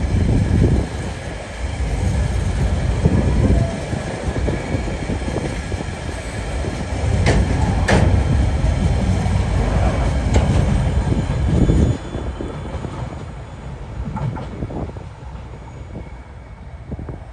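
Loaded container wagons of a freight train rolling past on a curve: a steady low rumble with clanks from wheels and couplings and a thin wheel squeal. The rumble drops away about twelve seconds in as the last wagon passes, leaving fainter receding train noise.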